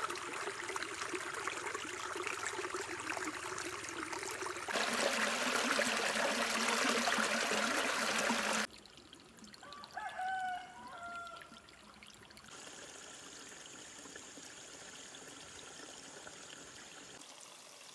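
Shallow stream trickling over rocks, then louder water splashing down a small rocky cascade that cuts off abruptly near nine seconds; a rooster crows once about ten seconds in, followed by faint steady background.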